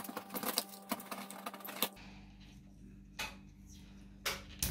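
Utility knife cutting and scraping at the edge of a plasterboard ceiling hole to enlarge it: a dense run of sharp clicks and scrapes for about two seconds, then a few separate clicks from handling the wiring.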